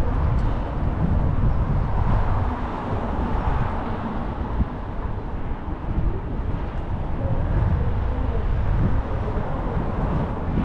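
City street ambience: a continuous low rumble with a haze of distant traffic and street noise.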